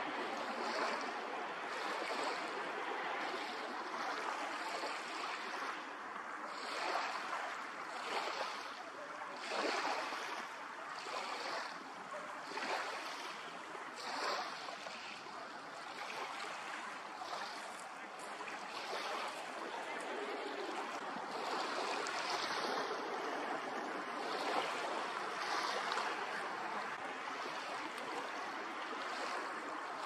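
Small waves lapping: a steady wash of water that swells every second or so.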